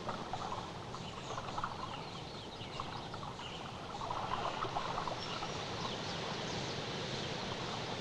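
Outdoor ambience of birds chirping and calling, many short scattered chirps over a steady hiss.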